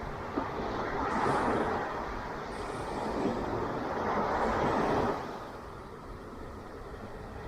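Ocean surf: a wave breaking and washing in, building about a second in and falling away suddenly after about five seconds, over a steady roar of the sea.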